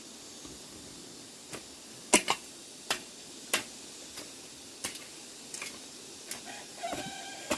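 A series of sharp, irregular taps over a steady hiss, with a cat starting to meow near the end.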